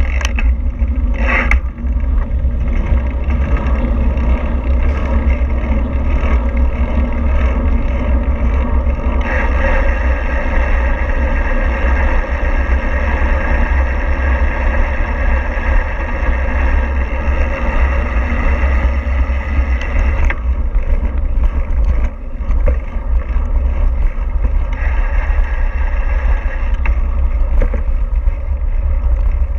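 Steady running noise of a moving vehicle, a constant hum and rush over a heavy low rumble. For a stretch in the middle, and briefly again later, the rush grows stronger.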